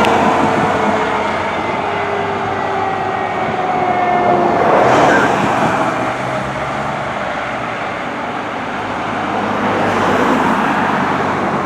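A responding fire apparatus's siren winds slowly down in pitch and fades out over the first half, under steady road noise from passing emergency vehicles. The road noise swells as vehicles go by, about five seconds in and again near ten seconds.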